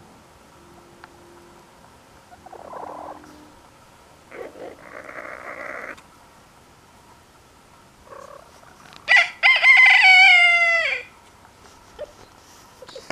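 Silkie rooster crowing once: a short first note, then a long crow that falls in pitch at its end, about two-thirds of the way in. A few softer, rougher sounds come earlier.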